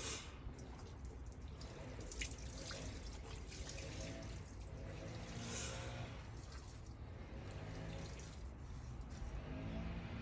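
Faint water sloshing and dripping as wet laundry is lifted out of the wash tub of a mini manual washing machine.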